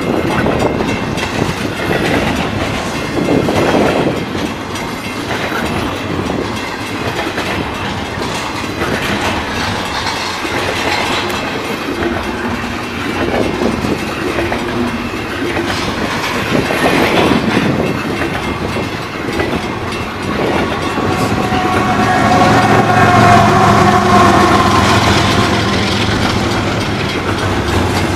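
Double-stack container well cars of a freight train rolling past close by: steady rumble of steel wheels on rail with clickety-clack over the rail joints. A wavering high tone rises over it for several seconds near the end.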